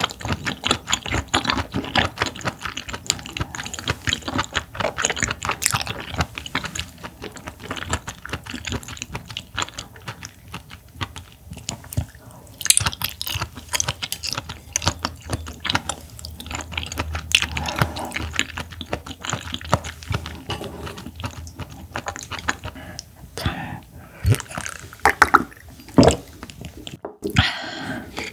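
Close-miked chewing of clam meat: a continuous run of quick, wet, irregular mouth clicks and squishes, broken by a short pause near the end.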